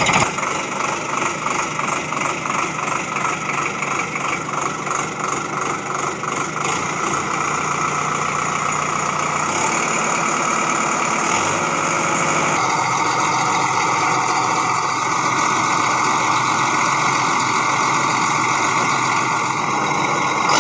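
Engine running at idle, throbbing rhythmically at first and then running more evenly.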